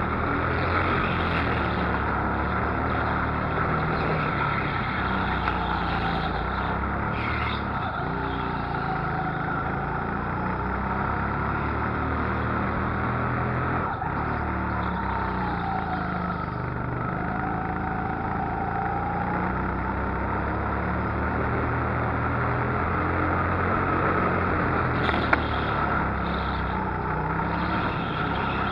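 Go-kart engine running under throttle from on board, its pitch dipping and rising again and again as the kart slows for corners and accelerates out.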